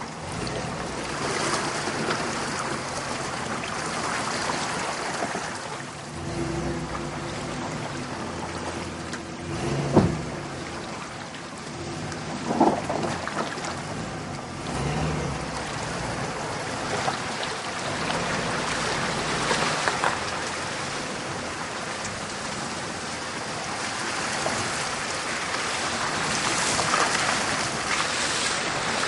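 Chevy 4x4 driving along a muddy dirt track, its tyres splashing and churning through puddles over the low running of the engine. A few sharp knocks stand out, the loudest about ten seconds in.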